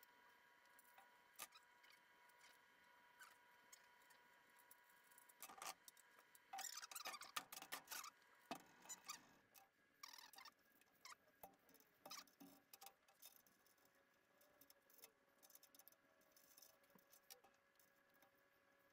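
Faint clicks, taps and scraping of small metal stunt-scooter parts being handled and tightened with a hex key, busiest from about five to nine seconds in, over a faint steady hum.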